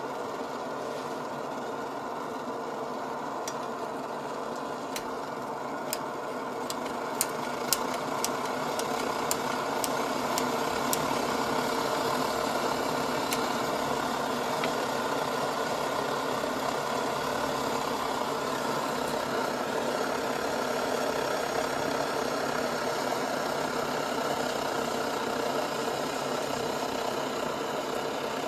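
Optimus pressurized liquid-fuel stove burner running with a steady rushing sound, pressurized with a mini pump and giving a strong flame; it grows somewhat louder about eight to ten seconds in. A run of sharp clicks sounds over the first ten seconds or so.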